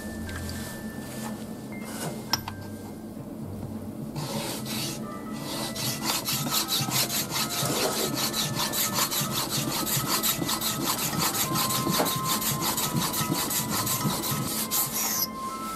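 Kanna (Japanese plane) blade being sharpened on a wet whetstone: steel rubbing back and forth on the stone in quick, even strokes, several a second, starting about four seconds in and stopping just before the end. A single sharp click comes a little after two seconds.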